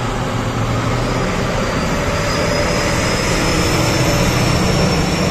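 A steady, loud engine-like noise with a faint high whine that rises slowly. It cuts off abruptly at the end, as an added sound clip would.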